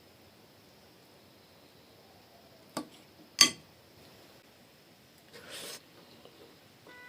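Two sharp knocks about half a second apart, the second much louder with a brief ring, like a hard object set down on a dish or table, followed about two seconds later by a short scraping rustle.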